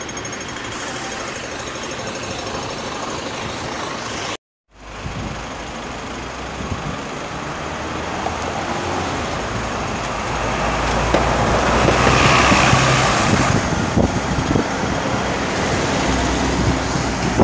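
City street traffic: cars and buses passing with a steady road rumble, swelling as a vehicle passes close about two-thirds of the way through.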